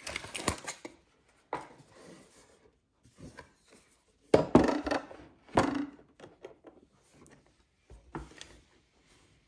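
Kitchen knives being handled and set down on a hard surface: a few separate sharp knocks and clatters, the loudest two about four and a half and five and a half seconds in.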